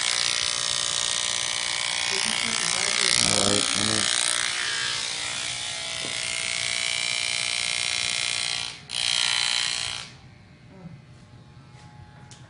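Corded electric hair clippers buzzing steadily as they cut hair close to the scalp. The buzz cuts out briefly just before 9 seconds, comes back, then stops about 10 seconds in.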